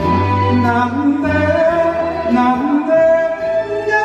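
A singer performs an enka ballad through a microphone, holding long notes over a recorded instrumental backing track.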